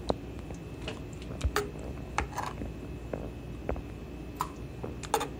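Spoon knocking against a pot as boiled tomatoes are scooped out of the hot water: scattered sharp clicks, with a short splash of water about two seconds in.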